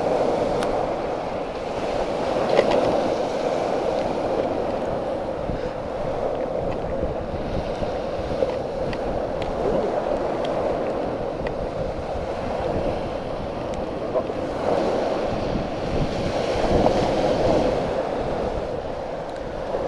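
Surf washing on the shore in slow swells, with wind on the microphone and a few light clicks.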